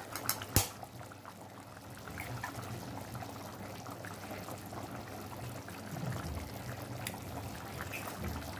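Thick curry boiling in a pan, bubbling and popping steadily. A few sharp clicks come in the first second.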